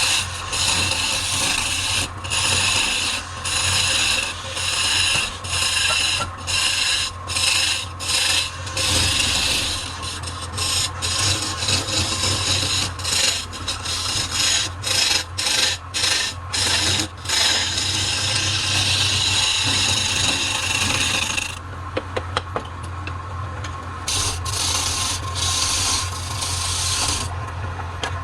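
Wood lathe running with a steady motor hum while a tool or abrasive scrapes the spinning wood in many short passes with brief breaks between them, easing off for a couple of seconds about three-quarters of the way through.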